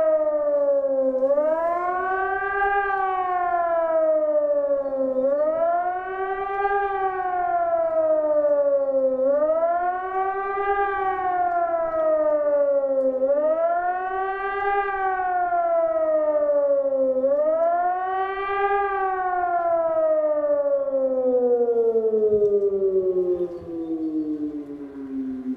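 Hörmann ECN 600 electronic civil-defence siren sounding the rising-and-falling wail of the public warning signal ('Warnung der Bevölkerung'), the pitch climbing and sinking about every four seconds. Near the end it gives one long falling tone as the signal winds down.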